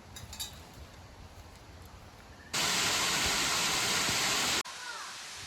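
Rushing water of a waterfall, an even loud hiss that cuts in suddenly about two and a half seconds in and cuts off about two seconds later, between quieter stretches of outdoor background noise.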